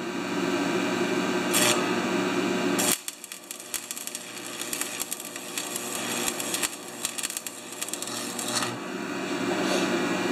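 AC stick-welding arc with a 6013 rod, laid as one large tack weld on a cracked part. A steady hum runs at first; about three seconds in the arc strikes and crackles and sputters for about six seconds, then breaks off and the hum returns.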